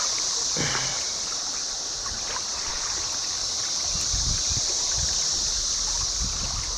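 Cicadas buzzing in a steady, unbroken high chorus over the noise of a creek running. A few low thumps come in around the middle.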